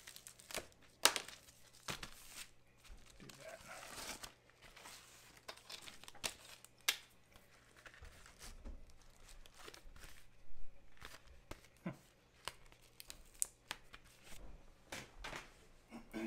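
Packaging crinkling and tearing as a wrapped packet is pulled open, with scattered light clicks and taps from small items being handled.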